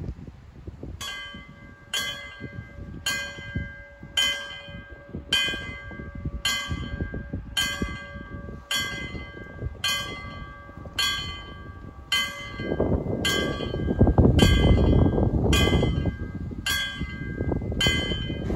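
Railway level crossing warning bell striking about once a second, each stroke ringing on: the crossing's alarm that the barriers are coming down for an approaching train. About two-thirds of the way in, a low rushing noise swells up beneath the strokes.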